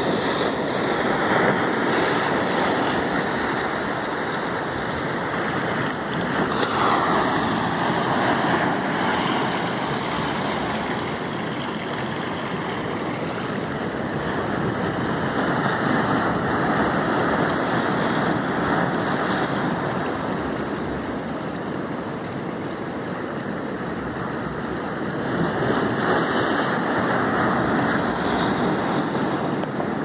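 Waves washing on a shore as a steady rushing noise that swells and eases slowly, louder about a quarter of the way in and again near the end.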